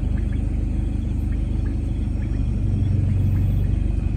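A car's engine and road noise heard from inside the cabin, a steady low rumble as it moves slowly along. A deeper hum swells for about a second near the middle.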